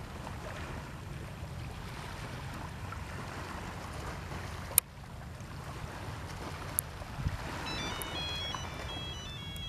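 Waterside ambience: steady wind noise on the microphone with a low rumble and the wash of water. A sharp click comes about halfway through, and faint high chirps come near the end.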